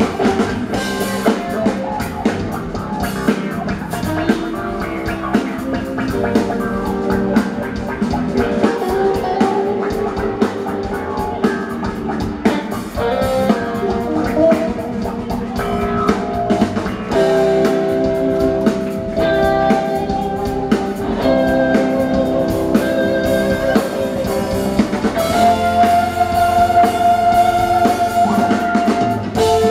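Live rock band playing: electric guitars, bass and drum kit, with long held lead guitar notes in the second half, one wavering near the end.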